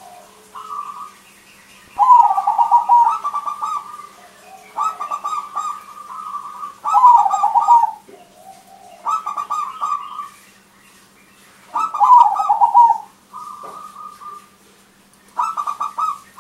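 Crossbred zebra dove (perkutut) singing: about seven phrases of rapid, rattling coos, each one to two seconds long with short pauses between. A faint steady hum runs underneath.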